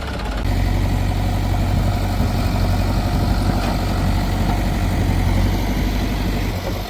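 Diesel engine of heavy farm or construction machinery running steadily with a deep, even hum.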